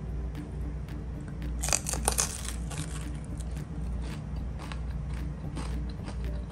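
Crunching and crackling of crispy deep-fried pork leg skin (crispy pata) as it is broken and eaten, with a burst of loud crackles about two seconds in and smaller crunches after. A low steady beat runs underneath.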